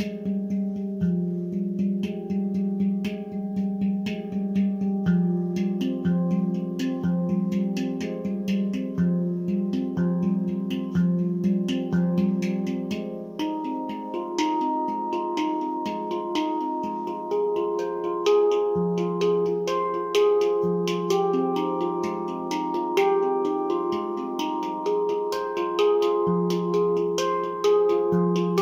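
Nimo Sounds handpan in F low Pygmy tuning played by hand: a continuous flow of struck notes ringing into one another, the low note sounding again and again beneath the higher tone fields, each stroke starting with a light finger tap.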